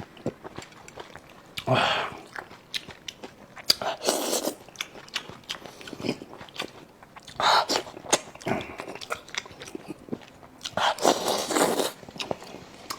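Close-up eating sounds of a person chewing soy-braised monkfish: wet chewing with many quick lip and mouth clicks, and a few louder noisy mouth bursts.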